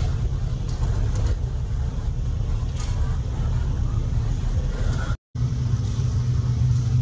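Steady low rumble under a haze of background noise, like a motor or traffic running nearby; it drops out completely for a split second about five seconds in.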